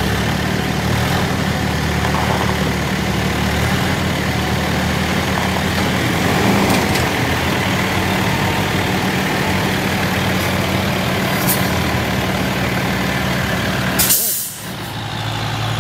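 Diesel engines of a farm tractor and a propane delivery truck running steadily while the tractor tows the truck out of a soft shoulder. Near the end, a short loud hiss of air, typical of a truck's air brakes.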